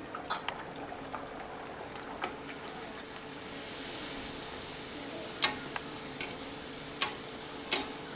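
Puris deep-frying in hot oil in an aluminium kadhai: a steady sizzle whose hiss grows louder about four seconds in as the puri puffs up, with a few sharp clicks of a slotted metal spoon against the pan.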